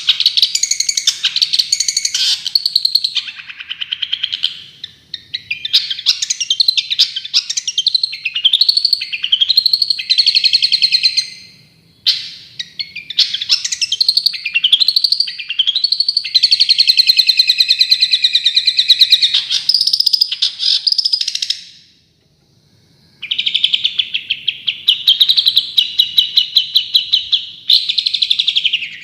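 Long-tailed shrike singing a loud, fast 'tembakan' song of rapid sharp chirps and sweeping notes. It pauses about three-quarters of the way through, then carries on with a quick, even trill.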